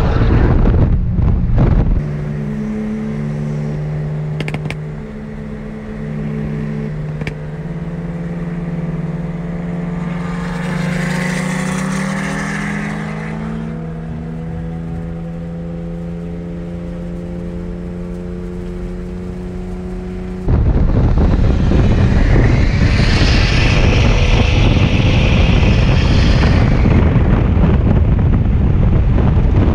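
Cars at highway speed, heard from inside a car cabin: a dense rush of road and wind noise, then a steady engine note that climbs in pitch as the cars accelerate hard in a roll race. About two-thirds of the way in the loud road rush returns, with a high whine over it for a few seconds.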